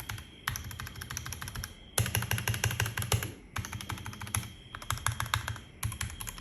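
Royal Kludge G68 mechanical keyboard with Gateron Brown tactile switches being typed on: fast runs of key clicks and clacks in bursts of a second or so, with short pauses between them.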